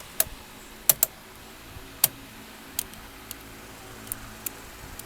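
Irregular sharp clicks and taps of hard plastic parts being handled during turn signal lever installation in a steering column, about nine in all, loudest in the first two seconds.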